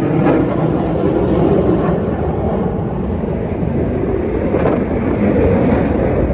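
Jet engine noise from a formation of KAI T-50B Golden Eagle jets flying past: a loud, steady rush.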